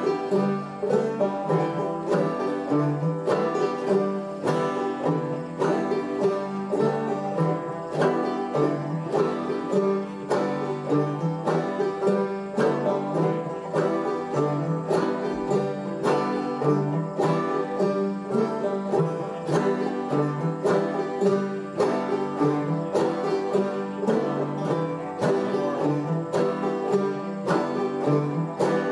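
Open-back banjo played clawhammer style, a steady run of plucked notes and brushed strums in an even, driving rhythm.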